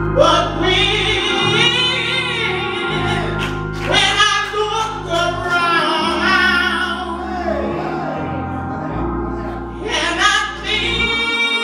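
A woman singing a gospel song into a microphone, holding long notes with vibrato, over sustained low accompaniment notes that change every couple of seconds.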